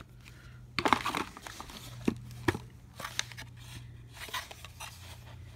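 Packaging crinkling and rustling as a user guide and a small plastic solar charge controller are handled, with several sharp clicks and taps, over a faint steady low hum.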